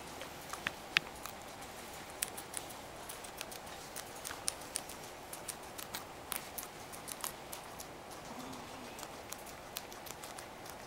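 Guinea pig chewing sweet potato leaves: quick, crisp crunching clicks, several a second, irregular.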